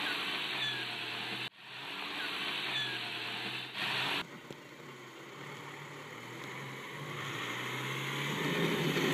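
Volkswagen Amarok ute's engine running at low revs as it crawls off-road, building and working harder near the end as it climbs the bank. A steady hiss with a few short bird chirps runs over the first four seconds and then cuts off abruptly.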